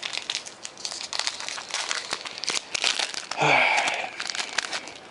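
Crinkling and crackling of a foil trading-card pack wrapper being handled and torn open, with many quick rustles and one louder, longer crinkle about three and a half seconds in.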